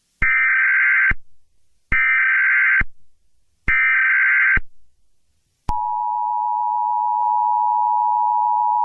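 Emergency Alert System header: three bursts of digital data tones, each just under a second long, followed about six seconds in by the steady two-tone EAS attention signal.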